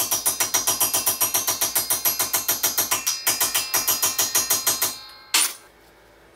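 Rapid, even metallic clicking, about seven clicks a second, as a knurled metal cap is twisted down onto a lubricated tube held in a vise, stopping about five seconds in. A single short, sharp knock follows.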